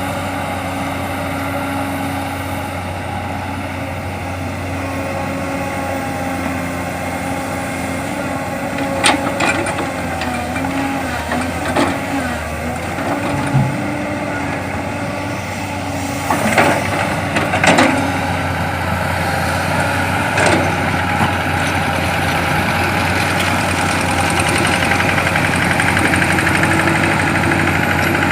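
Heavy diesel engines of an excavator and dump truck running steadily, with several sharp knocks about midway. The engine grows a little louder in the last few seconds.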